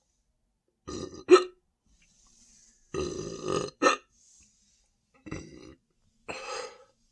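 A man burping repeatedly after drinking carbonated Sprite: a series of about six separate burps with pauses between, the sharpest and loudest about a second in and the longest about three seconds in.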